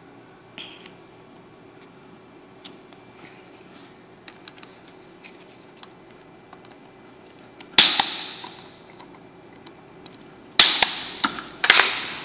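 Spring-loaded punch-down tool firing with sharp snaps, each with a short ringing tail, as it seats and trims the cable's wires in the contacts of an RJ45 keystone jack. Light clicks of handling come first, then one snap about eight seconds in and two more close together near the end.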